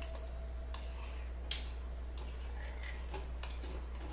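Metal spoon stirring soup in a steel pan, clinking against the pan several times, the sharpest click about one and a half seconds in, as the cornflour slurry is stirred in. A steady low hum runs underneath.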